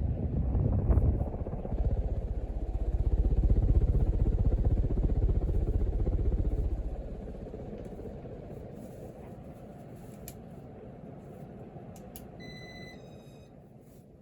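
Casablanca Four Seasons ceiling fan running at its top speed, its blades buffeting air against the microphone in a pulsing low rumble that eases off about seven seconds in and slowly fades. Near the end, a short two-tone electronic beep.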